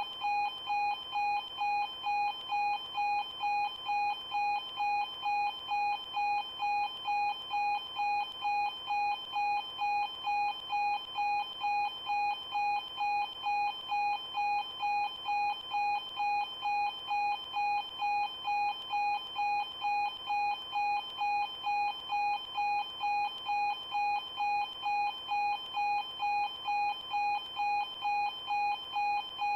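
Level crossing warning alarm sounding, a steady ringing tone repeated evenly a little under twice a second.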